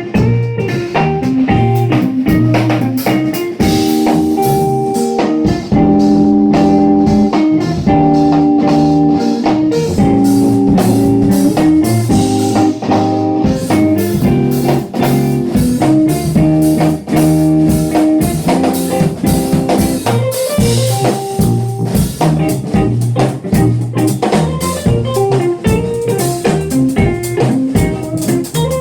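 Funk-jazz instrumental played by a trio: electric guitar over a tuba or sousaphone bass line and a drum kit keeping a steady groove.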